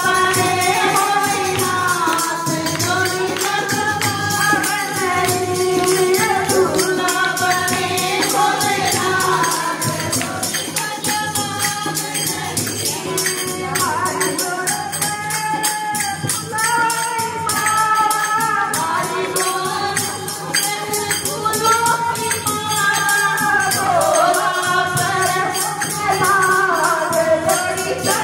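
A woman sings a Haryanvi devotional bhajan into a microphone over a fast, steady beat of jingling percussion and hand claps.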